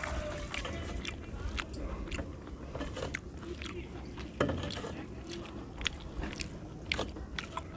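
Fingers mixing and squishing rice with fish curry on a metal plate, close up, with irregular sharp clicks and a louder knock about four and a half seconds in.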